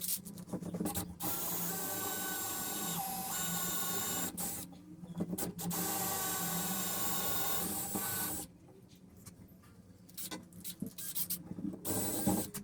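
Small electric power tool running in two steady runs of about three seconds each, with short knocks and clicks of handling between and after them.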